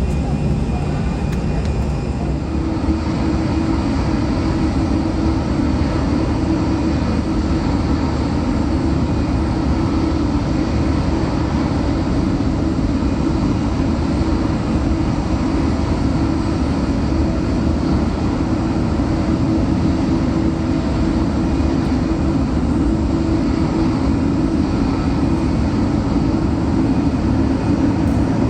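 Jet airliner engines, a steady loud rumble heavy in the low end that holds without a break.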